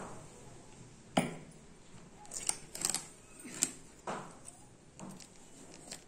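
Hands handling a cardboard smartphone box, with a sharp knock about a second in, a quick run of bright clicks and crinkles as the seal sticker is worked at, and another knock around four seconds in.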